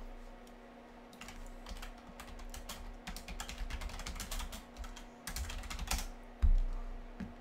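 Typing on a computer keyboard: a run of quick key clicks for several seconds, then a single heavy thump near the end.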